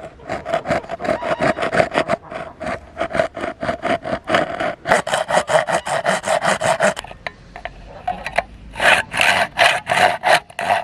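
A hand saw cutting across an animal bone in quick back-and-forth strokes, about five a second, with the blade ringing a steady tone through the rasping. The sawing stops briefly about seven seconds in, then picks up again.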